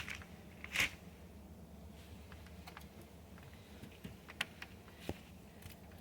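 Scattered light clicks and taps of door-knob hardware and small screws being handled and fitted, with a louder click about a second in.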